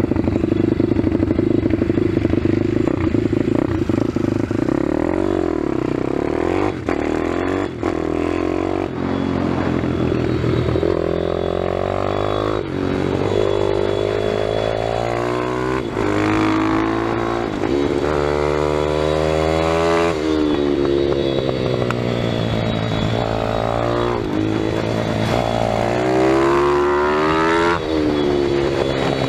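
Pit bike engine heard from on board, running steadily at first, then revving up and dropping back again and again as the rider accelerates, shifts and slows for corners.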